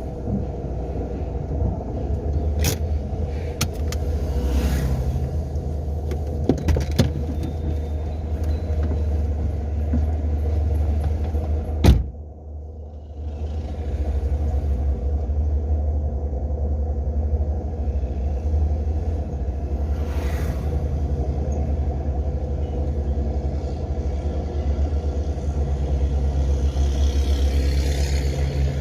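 Renault Sandero driving, heard from inside the cabin: a steady low rumble of engine and road noise, with a few light clicks and one sharp knock about twelve seconds in.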